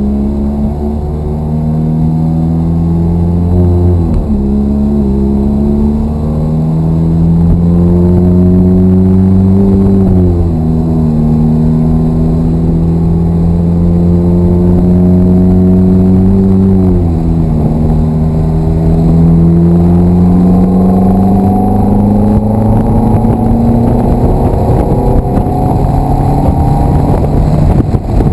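Ferrari F430's V8 engine heard from inside the cabin under hard acceleration, its pitch climbing steadily through each gear with sharp drops at the upshifts about four, ten and seventeen seconds in. Near the end the engine note falls away.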